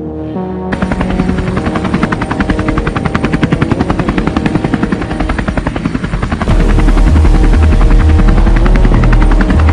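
Helicopter rotor sound: a rapid, even chop of the blades starts about a second in. A deep low rumble joins about two-thirds of the way through, and the whole sound grows louder.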